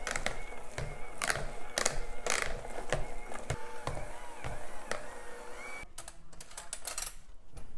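Electric hand mixer running with its beaters whipping mashed potatoes in a bowl, with scattered clicks and knocks. The motor's pitch wavers under the load, and it stops about six seconds in.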